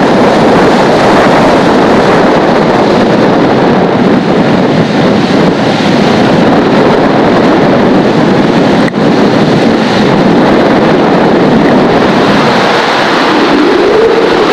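Hurricane-force wind buffeting a camcorder microphone: a loud, steady rushing noise, with heavy surf breaking beneath it. One brief click about two-thirds through.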